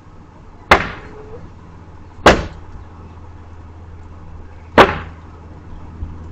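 Three loud, sharp bangs, the second about a second and a half after the first and the third about two and a half seconds later, each dying away quickly.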